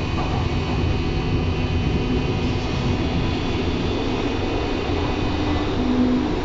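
Berlin U-Bahn train running between stations, heard from inside the car: a steady low rumble of wheels on rails and running gear.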